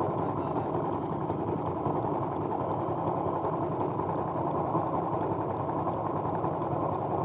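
Small single-cylinder motorcycle engine idling steadily.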